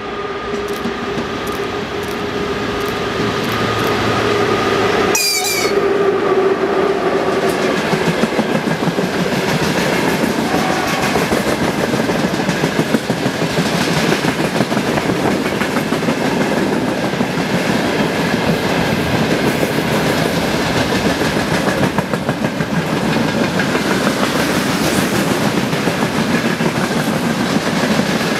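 A train passing close by at speed, its wheels clicking over the rail joints. The noise builds over the first few seconds as the train draws level, then holds steady.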